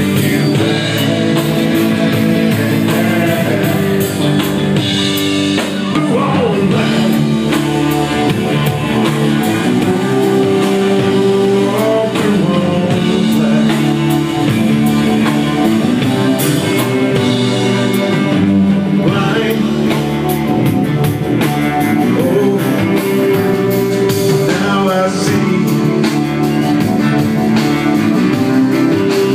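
Live blues-rock band playing, with strummed acoustic guitar, electric guitar and drums under a man's lead vocal.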